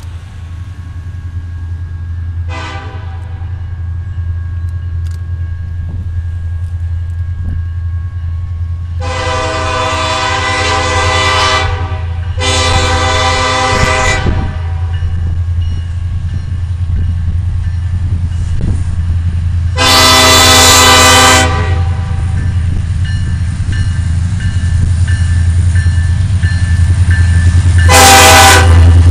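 Freight train led by an EMD SD70M-2 diesel locomotive approaching, its engine rumble growing steadily louder. The locomotive's air horn sounds a brief toot, then two long blasts close together, a louder blast, and another that begins near the end.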